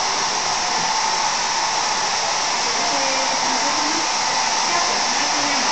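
Hand-held hair dryer blowing steadily, used to dry paint on a craft panel.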